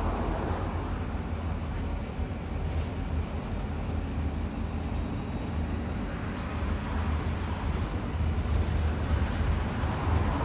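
Bus travelling: a steady low engine and road rumble with a hiss of road noise, swelling slightly near the end, and a few faint clicks.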